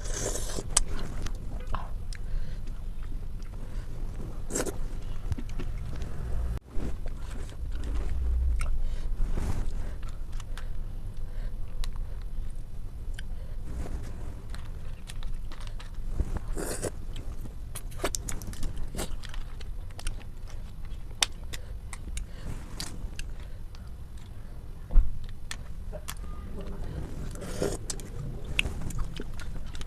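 Close-miked eating: chewing and wet mouth sounds with many scattered small clicks and crunches, and one louder thump about 25 seconds in.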